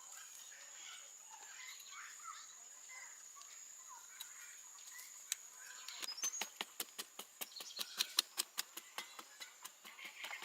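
A steady high-pitched insect drone with scattered bird chirps. About six seconds in, the drone stops and a rapid, irregular series of sharp clicks or knocks, several a second, begins and becomes the loudest sound.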